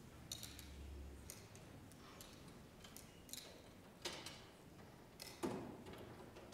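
Faint, scattered clicks and light knocks of small objects being handled, about eight in all, the loudest a duller knock about five and a half seconds in.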